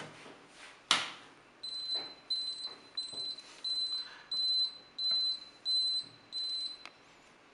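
Electronic beeper on a gate-remote receiver test board giving eight short, high-pitched beeps at an even pace of about one and a half a second, after a single click about a second in. The beeping comes while a remote is being programmed to the receiver.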